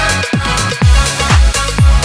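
Electronic dance music soundtrack with a steady kick drum, about two beats a second, over sustained synth chords.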